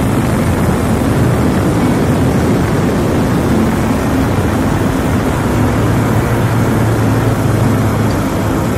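Small boat motor running steadily at speed, a constant low engine hum mixed with the rush of water and wind.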